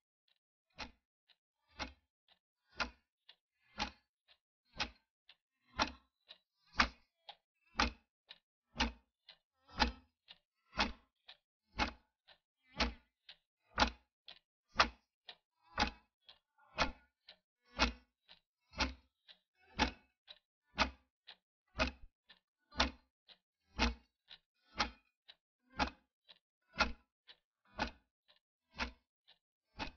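Clock ticking: a loud tick about once a second, with a softer tick in between.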